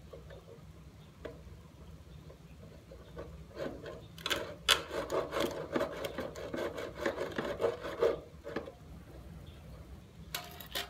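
Hand saw drawn back and forth across wood in rapid rasping strokes, starting about three and a half seconds in and running for about five seconds.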